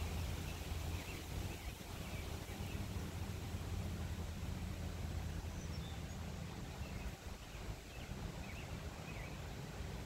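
Wind blowing through trees as a steady rushing noise over a low rumble, with a few faint bird chirps scattered through.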